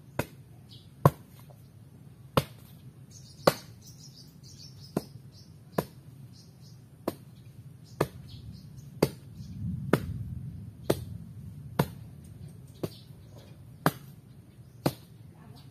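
Steel spade chopping into soil with sharp strikes about once a second. Birds chirp faintly a few seconds in.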